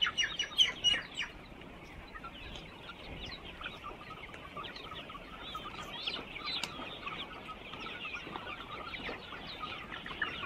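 A flock of chickens clucking and calling while feeding, many short calls overlapping into a steady chatter, with a few louder calls in the first second or so.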